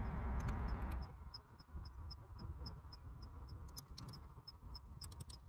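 Faint open-field ambience: a low rumble for about the first second, then a steady, fast, high ticking, about five or six ticks a second, with a few scattered clicks.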